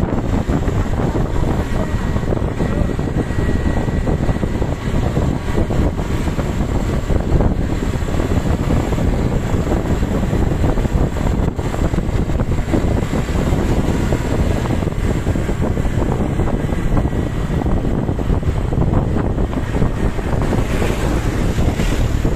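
Wind buffeting the microphone over steady road and engine noise from travelling at speed.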